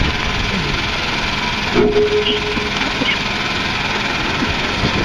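Loud steady outdoor noise of a rally crowd with a vehicle engine running, and a short steady tone about two seconds in.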